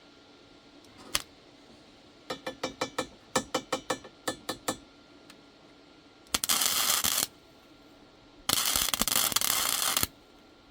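A run of quick mechanical clicks, then two MIG welding tacks on a steel gate frame: two bursts of crackling arc, the second longer at about a second and a half.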